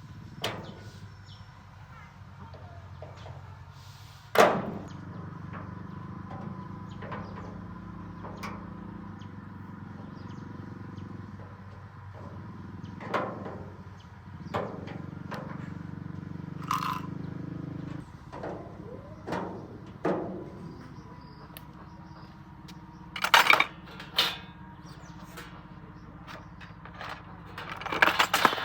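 Several sharp knocks, the kind of taps and clanks made while handling parts during a windmill repair, with a low steady hum running through the middle that cuts off suddenly about two-thirds of the way in.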